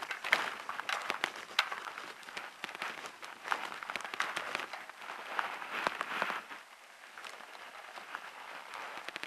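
Footsteps on loose gravel: a dense, irregular run of small crunches and crackles that grows quieter about two-thirds of the way through.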